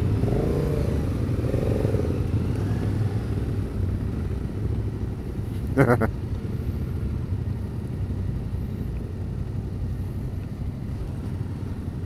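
Yamaha Ténéré 700's parallel-twin engine running at low speed as the motorcycle rolls slowly in a line of bikes, a steady low drone. A short, louder sound stands out about six seconds in.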